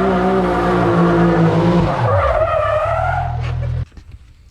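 A vehicle engine running hard at steady high revs; about two seconds in its note drops while a higher whine rises. The sound cuts off abruptly near the end.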